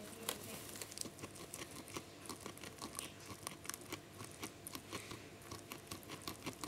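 A small furry animal, right at the microphone, chewing and crunching hay: a quick, irregular run of small crunchy clicks.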